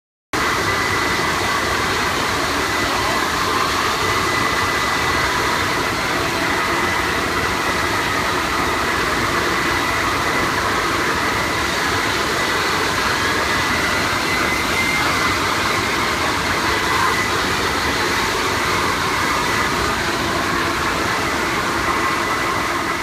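An electric grooming vacuum running steadily against a horse's coat, a loud even rush with a thin high motor whine, starting abruptly just after the beginning.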